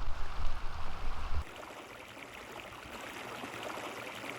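A loud, unsteady low rumble for about the first second and a half, then an abrupt change to a small stream trickling and babbling over stones, steady and fairly quiet.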